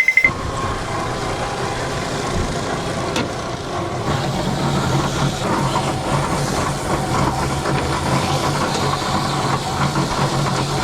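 Boat motor running steadily under a rushing noise, its low hum growing stronger about four seconds in.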